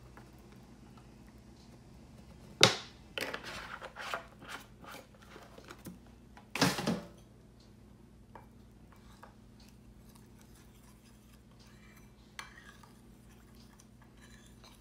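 Knocks and clicks of a plastic oil bottle and other kitchen items being handled and set down on a stone countertop. One sharp knock comes about two and a half seconds in, followed by a run of smaller clicks and rattles, a second clatter around seven seconds in, and a few faint taps after that.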